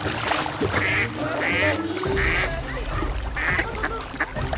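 Mallard ducks quacking, four short quacks over a few seconds.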